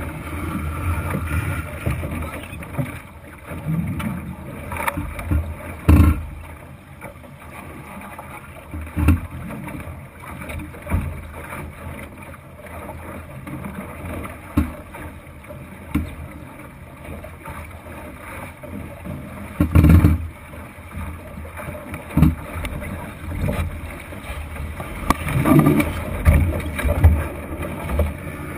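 Sounds of a Thistle sailing dinghy under way: wind buffeting the microphone and water rushing along the wooden hull, broken by frequent knocks and thumps.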